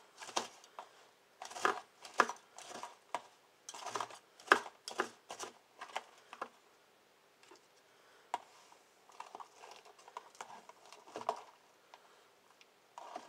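Knife and fork cutting lettuce in a plastic bowl: irregular crisp crunches and light taps of the blade and tines against the bowl. The cuts are louder and closer together in the first half, then sparser and quieter.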